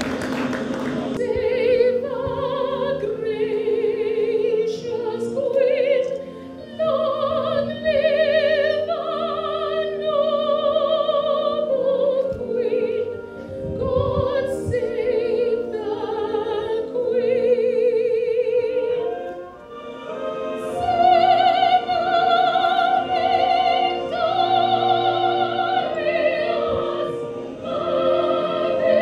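A woman singing solo into a microphone, long high notes with wide vibrato and short breaths between phrases. Applause dies away about a second in as she begins.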